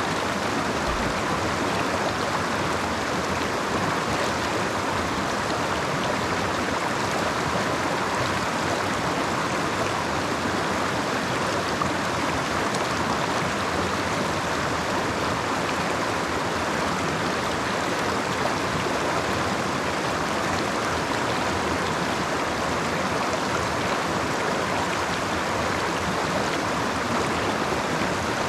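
Creek water rushing and splashing over rocks in a steady, unbroken flow.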